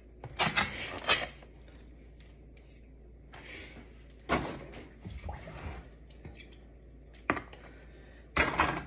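Kitchen handling noises as ladyfingers are laid into a glass baking dish: a few short scrapes and rustles, with a single sharp click a little after seven seconds in.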